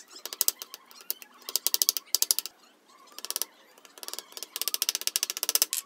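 Hammer tapping lightly on a stapler set on a wooden board, in several quick runs of sharp clicking taps, about ten a second, the longest run near the end.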